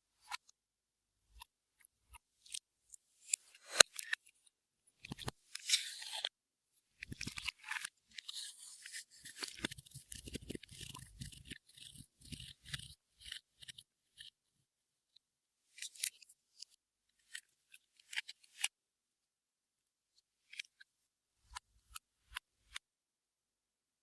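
Clear slime with beads and mix-ins being worked by hand: irregular crisp clicks and crackles. They are densest from about five to thirteen seconds in, then thin out to scattered clicks.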